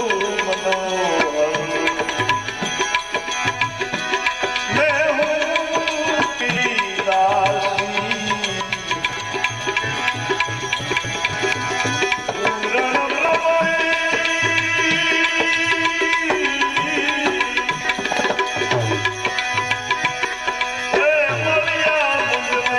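Gujarati devotional bhajan music: a tabla keeps a steady rhythm under held notes and a winding melody.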